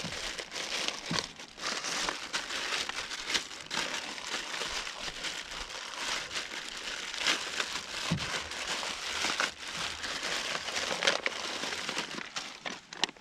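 Mailed packaging being opened and unwrapped by hand: a continuous crinkling rustle of wrapping, with many small sharp crackles.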